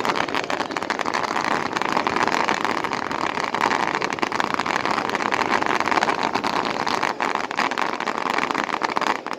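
A firework burning with a steady rushing hiss, packed with fast, dense crackles, which drops away abruptly near the end.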